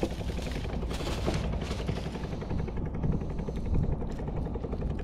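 A small boat engine chugging steadily, its firing strokes coming fast and even over a low hum.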